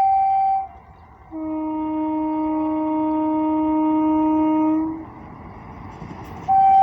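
Indian Railways locomotive horn sounding in turn: a high blast that ends under a second in, then a long lower-pitched blast of about three and a half seconds, then the high blast again near the end.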